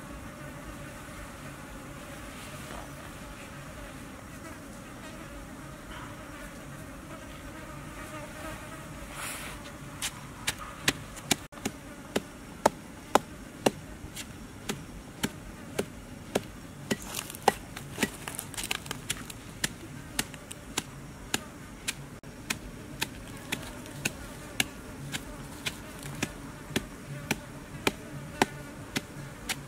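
Wooden pestle pounding chilies, garlic and salt in a clay mortar. The sharp, regular strikes come about twice a second, starting about a third of the way in, over a steady buzz of insects.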